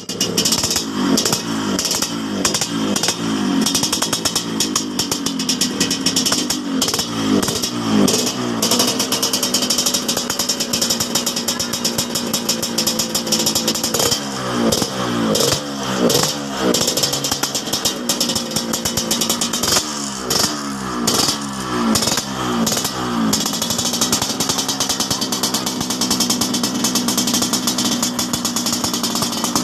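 Yamaha RX-King two-stroke single-cylinder engine, revved in repeated spells of quick throttle blips that rise and fall, settling back to a steady idle in between. Its exhaust gives the deep, wet snoring note known as "ngorok basah".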